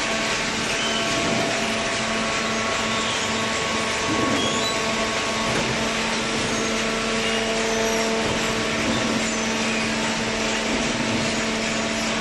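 Hydraulic cardboard baler and its feed conveyor running: a steady machine noise with a constant hum.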